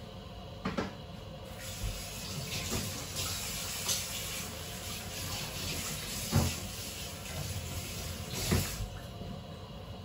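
Water hissing and rushing, starting about one and a half seconds in and stopping near the end, with a few sharp knocks, the loudest about two-thirds of the way through.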